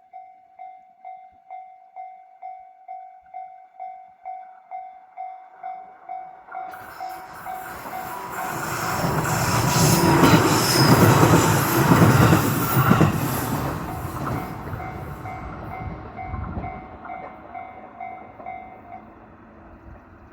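Japanese level-crossing warning bell ringing in a steady repeating beep about twice a second as a 211 series electric train approaches, passes loudly over the crossing and fades away. Its wheels clack over the rail joints as it goes by, and the bell stops near the end.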